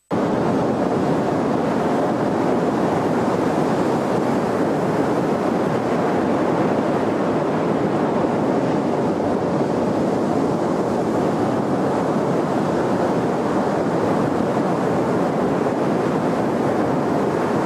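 Sea surf washing onto a sandy beach: a steady rush of waves that cuts in suddenly.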